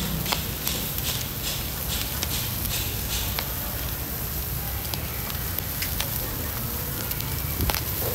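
Pork barbecue and offal skewers grilling over charcoal: steady sizzling and crackling, with sharp pops coming thickly in the first few seconds and now and then after.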